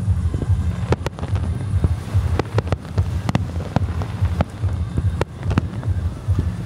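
Fireworks bursting overhead: a string of sharp bangs and cracks at irregular intervals, several in quick pairs, over a steady low rumble of wind on the microphone.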